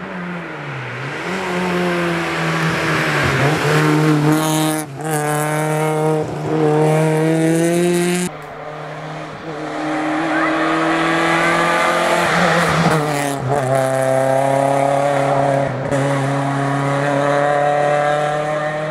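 Suzuki Swift rally car engine at full effort on a stage, revving up and dropping sharply at gear changes about five and eight seconds in and again near the end. Brief tyre squeal partway through.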